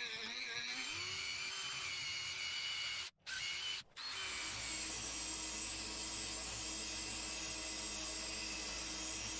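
Small electric power tool running with a steady high whine as it cleans up metal. Its pitch sags and wavers briefly in the first second, as if under load. The sound cuts out twice, briefly, around three to four seconds in.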